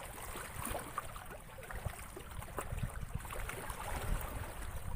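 Water lapping and splashing with an uneven low rumble of wind on the microphone, and a few faint clicks and knocks.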